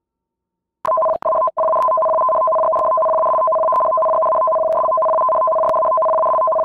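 Japanese disaster alert tone: two steady electronic pitches sounding together without a break, starting about a second in after a moment of silence and dropping out briefly twice just after they begin. Small clicks crackle through the tone, as in an alert warning of a tsunami.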